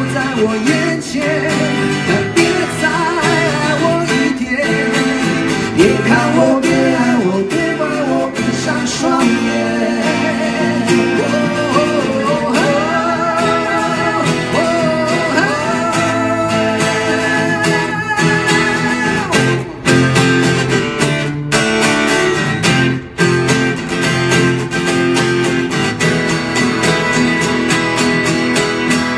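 Live acoustic music: two acoustic guitars strummed and picked under a man's singing. The singing stops about two-thirds of the way through, and the guitars play on alone.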